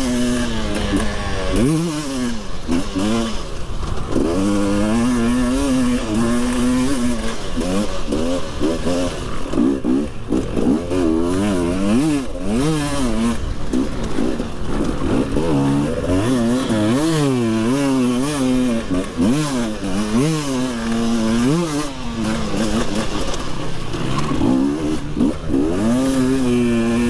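Husqvarna two-stroke motocross bike ridden hard, its engine revving up and dropping back again and again with the throttle, several times every few seconds.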